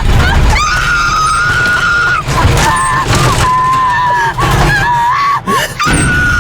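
Loud horror soundtrack: shrill, screech-like tones held and wavering in pitch over a low rumble, with brief breaks along the way.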